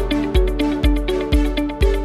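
Background music with a steady electronic kick-drum beat, about two beats a second, under plucked melodic notes.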